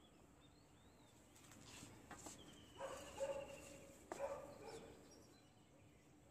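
Faint outdoor ambience of birds chirping, with a steady high trill and two louder short calls about three and four seconds in, plus a few light clicks and rustles from a green shade net being handled.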